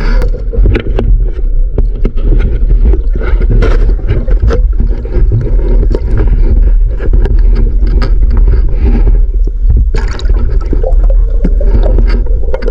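Loud, muffled low rumble of water, broken by many sharp clicks and knocks: an action camera's sound recorded from inside its waterproof housing underwater.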